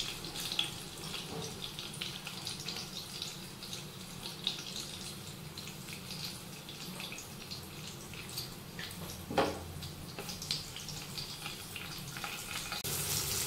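Low sizzle of a tempering of mustard seeds and green chillies frying in hot oil in a pan, with scattered small crackles and one sharper pop about nine seconds in. The sizzle grows louder just before the end.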